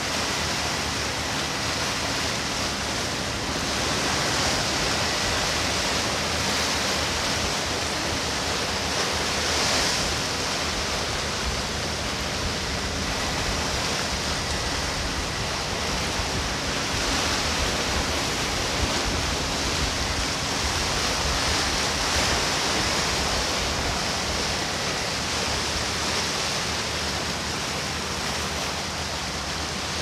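Sea surf washing on the shore: a steady rush of waves that swells and eases every several seconds.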